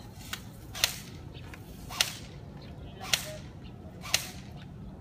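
Airsoft gun firing single shots: four sharp snaps about a second apart, after a fainter click.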